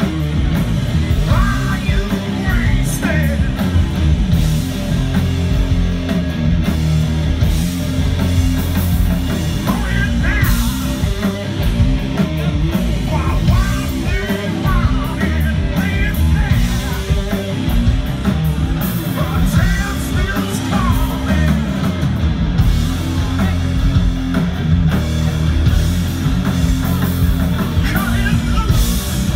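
A live rock band playing loud, with guitars, bass and drums, and a singer's voice coming in and out over the music, heard from among the audience.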